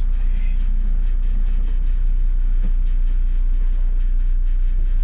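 2002 MCI D4500 coach conversion driving down the road: a steady, loud low drone of engine and road rumble, with faint ticks scattered through it.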